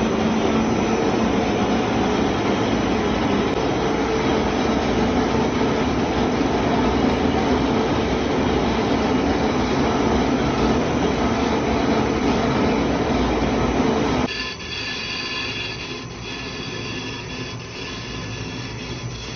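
A metalworking machine running with a loud, steady grinding noise that cuts off suddenly about fourteen seconds in, leaving a quieter hum with a few faint clicks.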